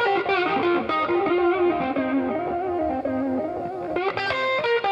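Background music led by a guitar playing a melody that steps from note to note.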